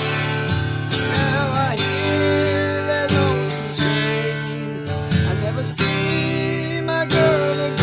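Acoustic guitar strummed in steady chords, a country song's instrumental passage, with a wavering melody line above the chords.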